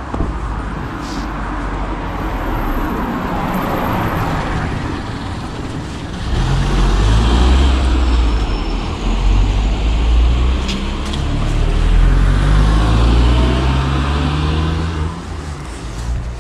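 Cars driving past close by on a town street: tyre noise at first, then from about six seconds in the louder engine hum of passing cars, its pitch rising as they pull away, fading near the end.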